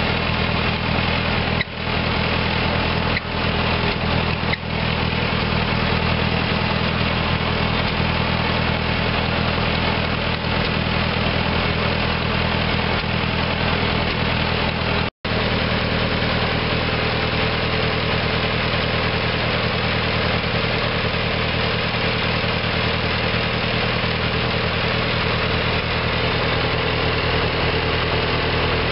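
Ford 8N tractor's four-cylinder gasoline engine idling steadily. There is a momentary break in the sound about halfway through.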